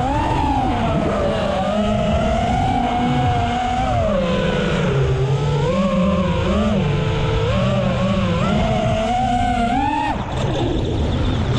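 Motors and three-blade props of a 5-inch FPV quadcopter (2205 2500KV brushless motors) whining in flight, the pitch rising and falling with the throttle. About ten seconds in the whine climbs, then cuts out briefly as the throttle drops, and comes back near the end.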